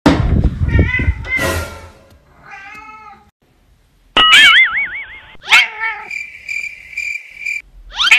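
A string of short cat meows, the loudest in the first two seconds. A warbling electronic tone and then a steady electronic tone, music or sound effects, sit between the later meows.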